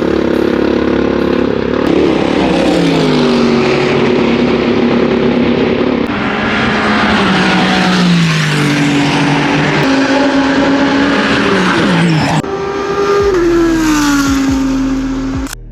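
Several GT3 race cars running flat out past the listener one after another. Each engine note drops in pitch as the car goes by, with passes overlapping from about two seconds in to near the end.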